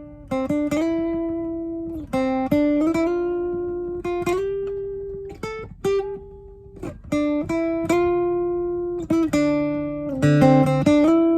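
Acoustic guitar strumming chords, each left to ring and fade before the next. There is a quieter lull about two-thirds of the way through, and busier, louder strumming near the end.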